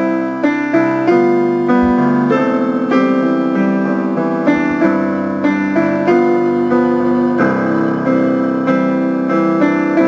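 Piano playing the instrumental introduction of a song, steady chords with a new note or chord struck about every half second at a moderate tempo, before the vocal line comes in.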